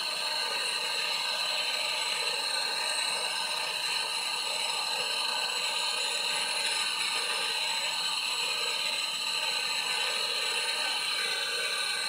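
A handheld gas brazing torch flame hissing steadily while it heats a refrigerator's copper tubing for brazing.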